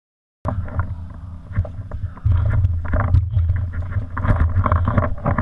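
Muffled low rumble and knocking from an action camera in its housing on a paintball marker, jostled as the player walks, with scattered sharp clicks and taps. The sound cuts in suddenly about half a second in.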